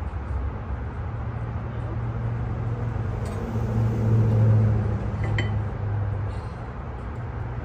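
A low, steady engine hum that swells for a couple of seconds midway, with two light metallic clinks.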